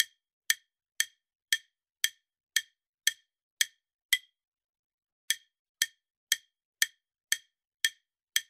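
Countdown-timer ticking sound effect: short, sharp ticks about twice a second, pausing for about a second midway before ticking on.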